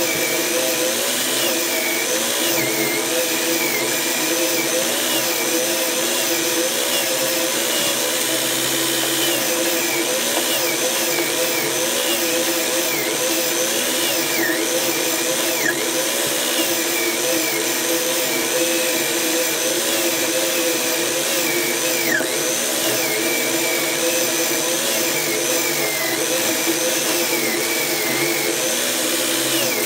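Electric drill clamped in a vise, running continuously with a brass wire wheel brush in its chuck as a rusty steel chain is pressed against the spinning brush to scrub the rust off. The motor's pitch dips and recovers over and over as the links load the brush.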